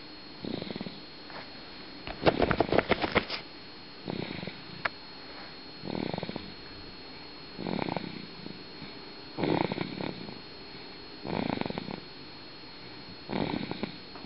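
Snoring in a steady rhythm: one rattling snore about every two seconds, with a louder, longer rattling snore about two seconds in.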